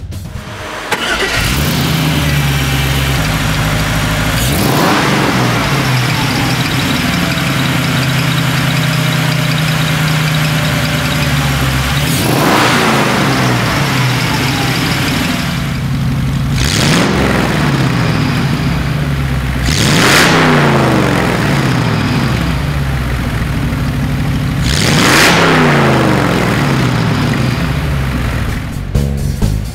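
LS1 V8 in a resto-mod 1934 Ford Roadster starting about a second in and settling to a steady idle. It is then revved several times, each rev rising and falling back to idle, heard through its twin exhaust pipes.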